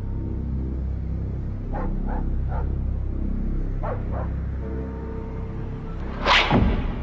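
Low, eerie musical drone with a dog barking three times about two seconds in and twice more about four seconds in, then a loud whoosh falling in pitch into a low thud near the end.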